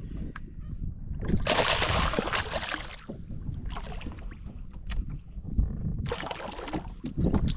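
Water splashing in two bursts, about a second in and again near the end, over a low rumble of wind on the microphone.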